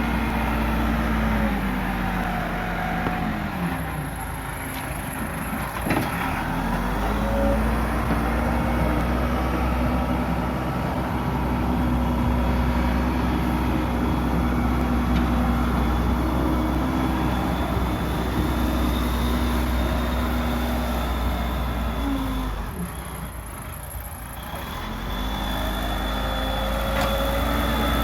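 Case 580 Super L backhoe loader's diesel engine running hard while it pushes earth, its pitch dropping and rising again as the load changes, with a thin steady high whine over it. The engine eases off briefly about 23 seconds in, then revs back up.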